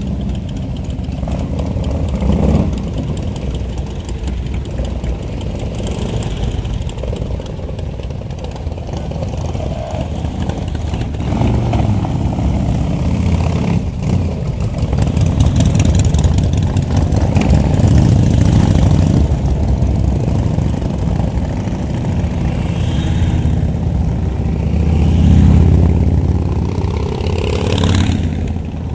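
A column of Harley-Davidson cruiser motorcycles riding past one after another, their V-twin engines running and revving, the sound swelling and fading as each bike goes by.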